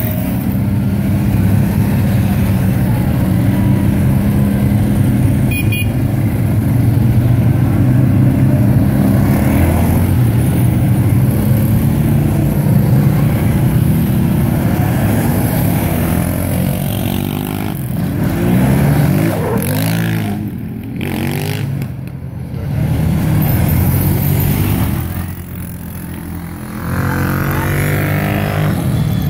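A convoy of quads (ATVs) driving past one after another, their engines running together in a steady hum at low revs. Around the middle and again near the end, engine pitch rises and falls as single quads rev up and pass close by.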